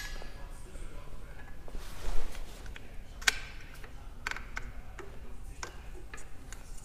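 Scattered light metallic clicks and ticks of hand work on a generator's V-belt pulley and its steel shim washers, with a short ringing clink at the start and another about three seconds in.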